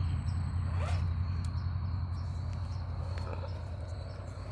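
RC4WD TF2 scale crawler's electric motor and drivetrain whirring as it drives, growing gradually fainter.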